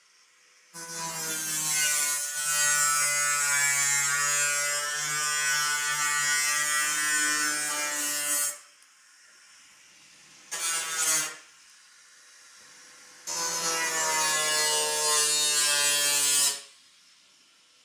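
Angle grinder cutting through the roof's metal sheeting, heard from the room below: a steady motor whine that runs for about seven seconds, stops, gives a short burst, then runs again for about three seconds.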